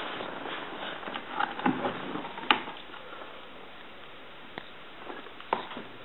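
A person sitting down on a couch: rustling of cushions and clothing with a sharp click about two and a half seconds in, then low room hiss broken by two fainter clicks near the end.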